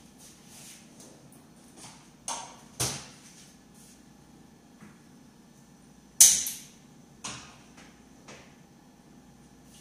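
Kitchen handling sounds at a gas range: a few sharp knocks and clatters of cookware and stove parts, the loudest a little past the middle, with short ringing tails.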